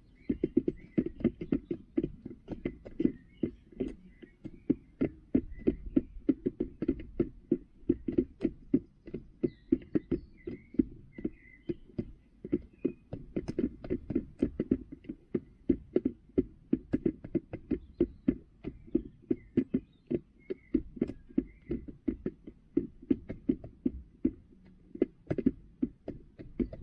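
Hens pecking at feed in a plastic feeder pan right by the microphone: an irregular run of sharp taps, several a second.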